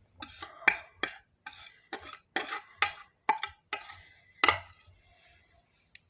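Cutlery knocking and scraping against dishes: about ten sharp clinks and scrapes, the loudest one near the middle of the run, dying away about halfway through.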